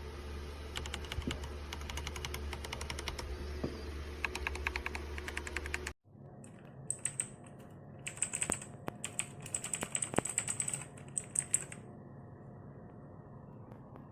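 Typing on a CPSTECH K86 hot-swap mechanical keyboard: a fast, dense run of key clicks for about six seconds. After a sudden cut comes a quieter stretch of slower, scattered keystrokes that thin out near the end.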